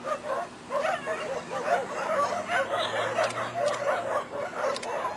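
Dogs barking and yipping in short, repeated bursts throughout, mixed with indistinct background chatter.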